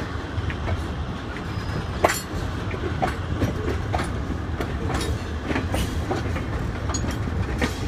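Freight cars rolling past on the track: a steady low rumble with frequent, irregular clicks and clanks from the wheels on the rails.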